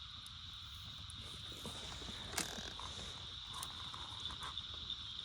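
Steady, high-pitched chorus of night insects, with a few sharp clicks over it, the loudest about two seconds in.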